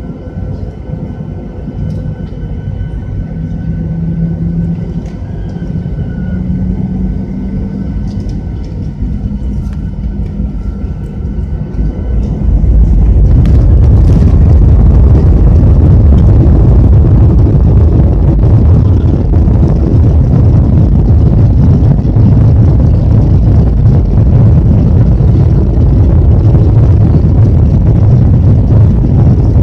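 Jet airliner engines heard from inside the cabin: a quieter steady rumble with a thin high whine, then about twelve seconds in the engines go to take-off thrust and a loud, deep rumble of the take-off roll takes over and holds.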